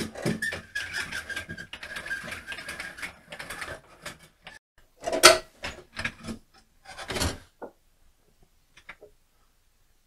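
Generator rolling down wooden truck ramps on its wheels while the rope pays out through a Tuf Tug rope hoist: a rattling, grinding run with a thin steady squeal for about four seconds. Two loud clunks follow, a little after the middle and again near three-quarters of the way through.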